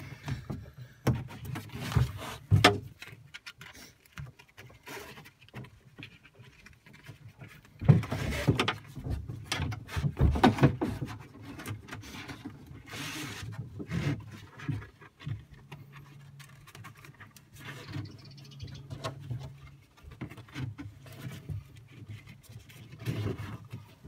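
Nylon webbing straps pulled and worked through plastic buckles: irregular rustling, scraping and small clicks, louder and denser for a few seconds about eight seconds in.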